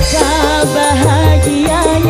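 Live dangdut band playing an instrumental passage between verses: a bending, ornamented lead melody over a pulsing bass line and regular cymbal ticks.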